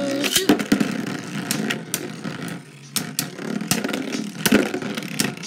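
A Metal Fight Beyblade and a Burst Beyblade spinning and clashing in a plastic stadium. There is a steady whirring scrape, broken by many sharp clicks as the tops strike each other and the stadium wall.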